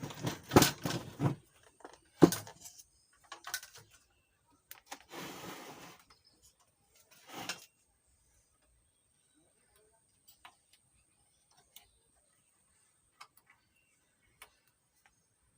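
Handling noises on a workbench: a quick run of sharp clicks and knocks at the start, a few more knocks and a short rustle, then only occasional faint ticks, over a thin steady high-pitched whine.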